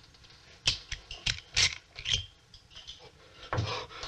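Small metallic clicks and scrapes of rifle parts being handled and pulled apart, about five sharp clicks in the first half.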